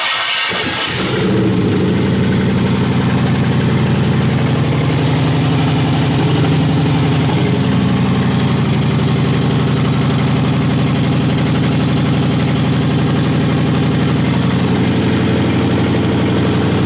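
A junkyard 5.3-litre GM V8 on an engine test stand starts within about a second and settles into a steady idle. It runs with no header gaskets fitted at the exhaust manifolds.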